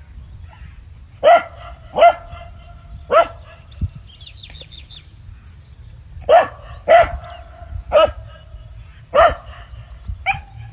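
A dog barking: eight short single barks at uneven gaps, with faint high bird chirps in between.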